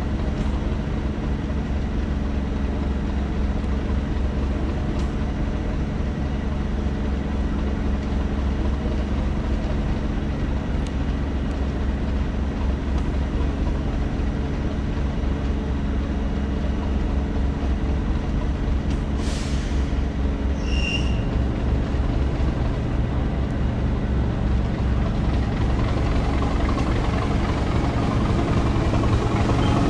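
Diesel-hauled heritage passenger train running along the line: a steady low rumble of the train on the rails, with a short high squeal about twenty seconds in. The running noise grows louder near the end.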